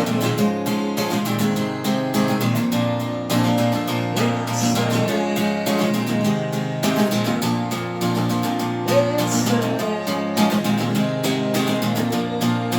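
Music: strummed acoustic guitar playing a steady rhythm.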